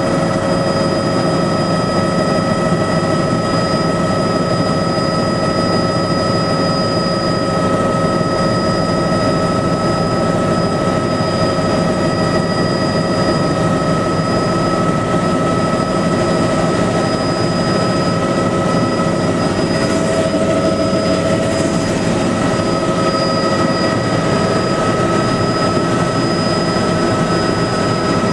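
Bell 206 JetRanger helicopter in flight, heard inside the cabin: a steady drone of its Allison 250 turboshaft engine and rotor, with several steady high-pitched whining tones over it.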